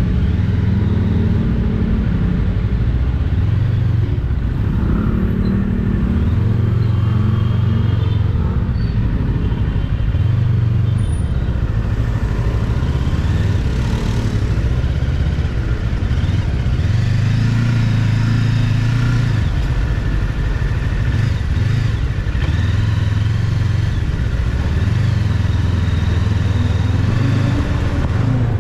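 Rusi Cyclone 400S motorcycle being ridden, its engine running under road and traffic noise. A heavy low rumble swells and eases every few seconds.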